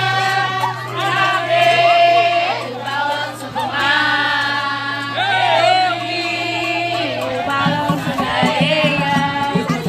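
A crowd of devotees singing a religious chant for Yemanjá together, with long held notes. A steady low hum under the singing stops about seven and a half seconds in, and a low repeating beat comes in near the end.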